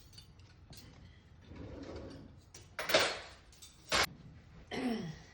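Dishwasher door and racks being handled: light clicks, a scraping slide about three seconds in, then a sharp clack about a second later.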